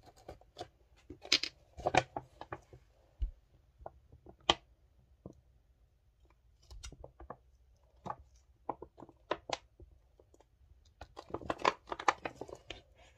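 Scattered clicks and taps of a plastic glue bottle and a clear plastic container being handled while glue is squeezed into the container, with denser rustling and clicking near the end as a plastic package is handled.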